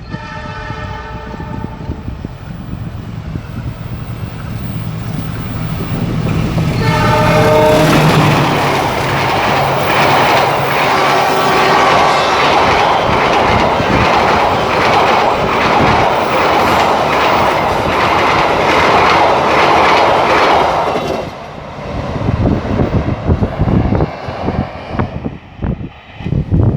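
Train horn sounding briefly at the start and again about seven seconds in, followed by a train passing close by with a loud, steady rolling rumble for about thirteen seconds. The rumble drops away sharply, leaving quieter, uneven noise.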